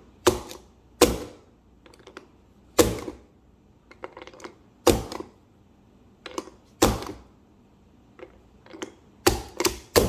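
A plastic Ludex speed loader pushing .40 cartridges into a Glock magazine: a sharp click each time a round snaps down into place, roughly every one to two seconds, with fainter ticks of the next cartridge being set in the loader between them.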